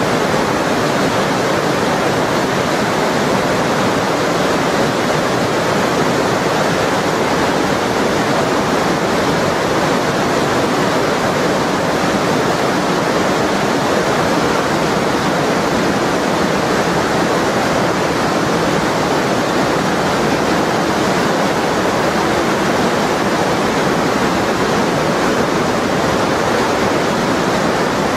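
The Lütschine, a glacial meltwater river, rushing over rocks in white water: a loud, steady, unbroken rushing.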